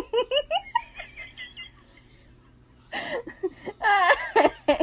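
A person laughing in a quick run of short bursts, then laughing again more loudly after a short pause, about three seconds in.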